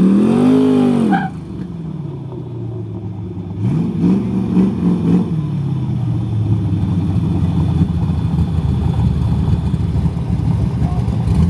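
Drag cars' engines at the starting line: one engine revs up and back down in the first second, then several quick revs follow about four seconds in, and the engines idle steadily after that.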